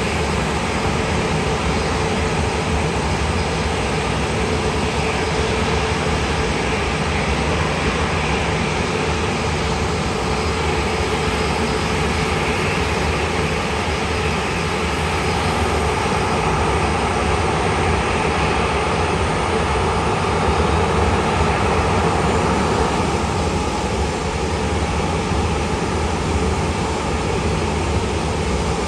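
Jet airliner engines running: a steady, even rushing noise that swells slightly past the middle.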